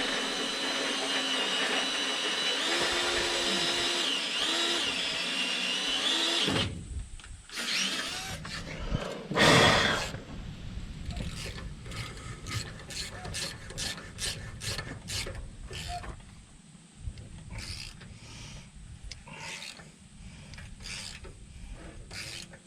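Power drill running steadily for about six seconds, its pitch wavering slightly, then stopping. After it comes a short loud burst of noise, then a run of light metallic clicks and taps from hand tools working on the bolts.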